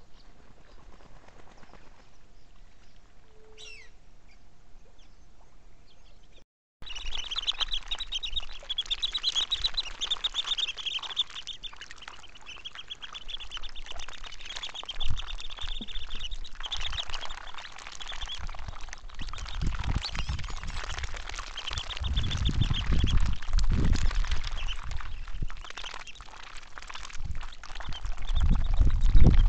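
Black-bellied whistling ducks calling: after a quiet opening with a single falling whistle, long spells of rapid, high whistled chatter, with low dull bumps in the second half.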